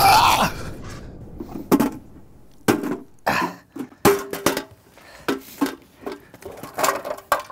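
A fire extinguisher's spray hisses and fades out in the first second. Then comes a string of short metallic clinks and knocks, some briefly ringing, as a hand tool works at a scorched steel cash box to pry it open.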